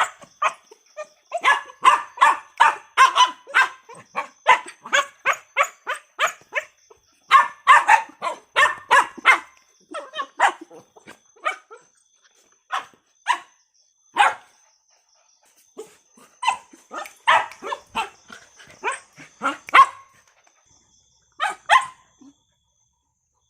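A dog barking in quick runs of short barks, several a second, with pauses between the runs. The barking stops just before the end.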